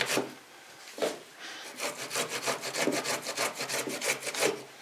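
Fresh ginger root being rubbed on a hand grater in quick rasping strokes, about five a second, after a short pause near the start.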